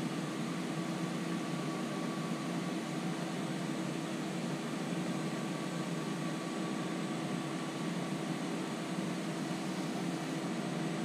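Wood lathe running steadily at speed, a constant motor hum and whir with a faint high whine, as friction polish is burned in with a pad held against the spinning turning.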